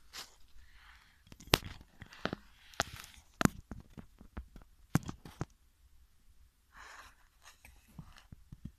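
Crunching and rustling in dry leaf litter, with a run of sharp snaps and clicks from about a second and a half to five and a half seconds in, and a softer rustle near the end.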